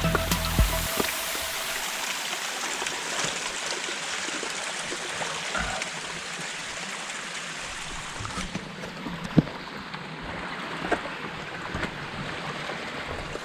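Background music ends about a second in, then a steady rush like flowing water, broken by a few sharp clicks.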